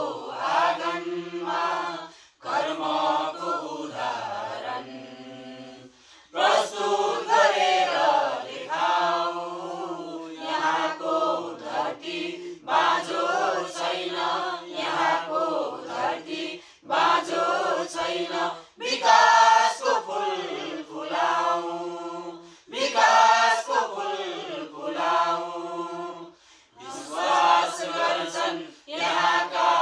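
A group of men and women singing a Nepali song together, unaccompanied, in phrases of a few seconds with short breaks between them.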